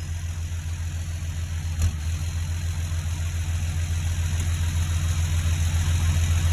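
John Deere 7530 Premium tractor's six-cylinder turbo diesel running steadily at low revs, a deep even drone. A single click sounds about two seconds in, and the engine grows slightly louder toward the end.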